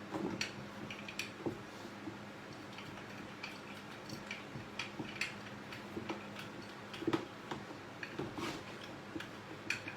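Scattered light clicks and knocks of grinder parts being handled, a few to the second at most, over a faint steady hum.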